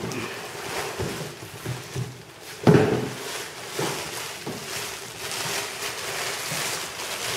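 Clear plastic bag crinkling and rustling as hands pull it open and handle it, in short uneven strokes, loudest about two and a half seconds in.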